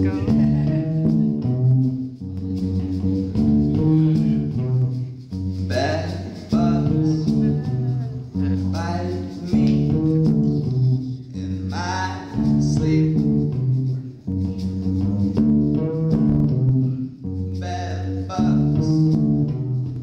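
Acoustic bass guitar played through a PA, plucking a repeating low riff.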